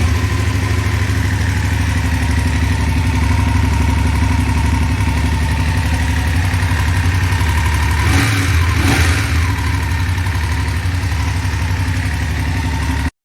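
BMW F850GS motorcycle's parallel-twin engine idling steadily, then cutting off suddenly near the end. It has a top-end ticking that a dealer hearing this recording took for a failing cam chain tensioner, which the owner suspects may be a worn rocker arm in the cylinder head.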